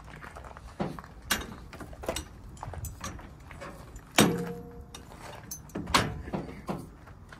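Semi-trailer landing gear being hand-cranked: the steel crank handle turning with irregular metal clicks and clanks, a loud ringing clank about four seconds in and another near six seconds.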